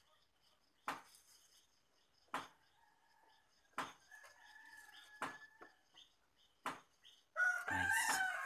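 A rooster crowing in the background, with faint sharp clicks about every second and a half. A louder sound with several pitches comes in near the end.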